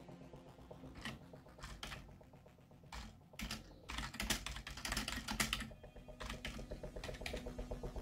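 Laptop keyboard being typed on: a few separate keystrokes in the first seconds, then a quick run of key clicks from about four seconds in, with a few more taps near the end.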